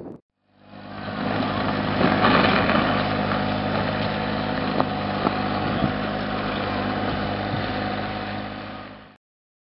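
An engine running steadily at an even speed, with a few faint clicks; it fades in just after the start and cuts off suddenly shortly before the end.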